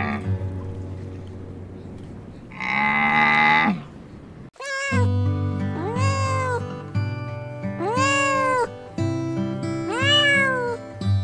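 A camel's drawn-out call about three seconds in, then a cat meowing about five times, each meow rising and then falling in pitch, over background music.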